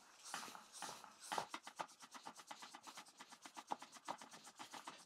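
Floor track pump being worked quickly by hand to inflate an emptied road bike tyre: a faint, fast, even run of short rubbing strokes of the pump.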